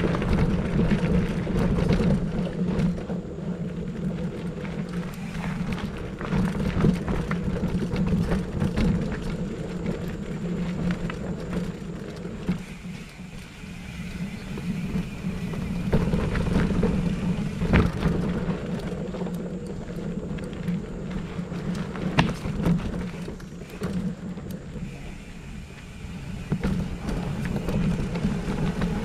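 Mountain bike riding along a gravel and leaf-litter dirt trail: knobby tyres rolling and crunching, with a steady rumble and the bike rattling and knocking over bumps. It eases off twice, about 13 and 25 seconds in.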